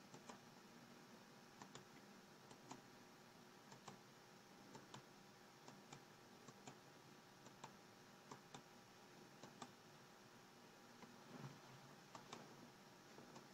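Faint, irregular clicks of a computer mouse, a dozen or more and often in quick pairs, over quiet room tone with a low steady hum.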